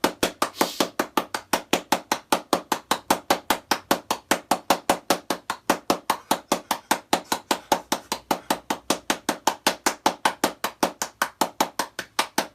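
A fast, even run of sharp knocks, about six or seven a second, going on without a break.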